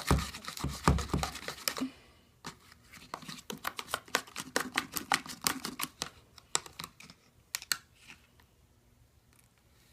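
Glue slime being stirred with borax activator in a container: a run of quick, irregular, sticky clicks and pops that thin out near the end.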